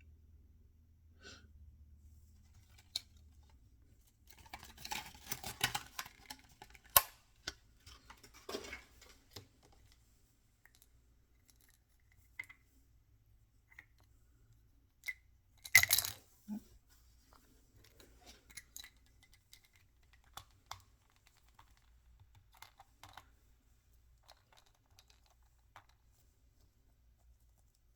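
Hands unwrapping small toy packages: plastic and foil wrappers crinkling and tearing, with scattered clicks of small plastic pieces. The handling is busiest a few seconds in, with one sharp click, and there is a loud short rustle about halfway through.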